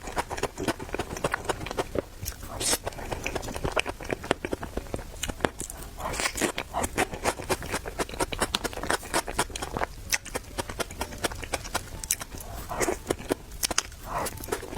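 Close-miked chewing and mouth sounds of someone eating Chinese food: dense, irregular wet clicks and smacks, with a few louder bites.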